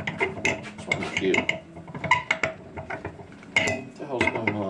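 Metal clicks and clinks of a steel socket being worked off and onto a socket extension clamped upright in a bench vise, in irregular small knocks.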